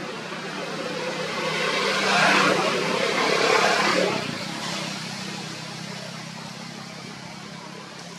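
A motor vehicle passing by, its engine and road noise swelling to a peak a few seconds in and then fading away over a low steady hum.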